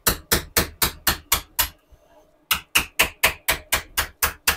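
Rapid, evenly spaced hammer blows, about four a second, stopping briefly a little under two seconds in and then starting again.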